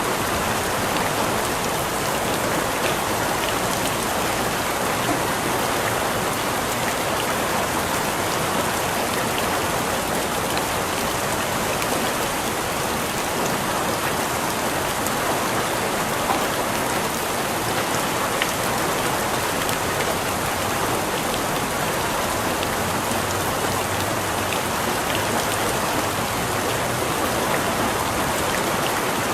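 Steady rain falling, an even hiss of many drops with faint individual drop ticks, unchanging throughout.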